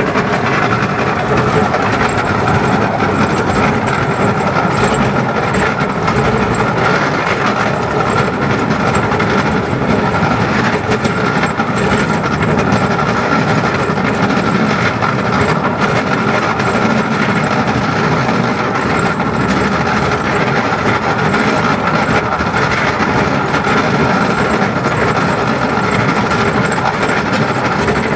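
10¼-inch gauge Garratt steam locomotive and its carriages running steadily along the line: continuous wheel-and-rail noise with the engine working, heard from the open carriage just behind it.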